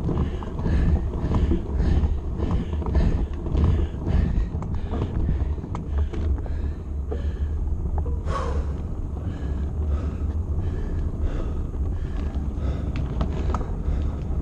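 Wind rumbling on the camera's microphone while a mountain bike is ridden slowly along a concrete hilltop path. A rhythmic pulsing comes about twice a second for the first few seconds, and a brief falling squeal comes a little past halfway.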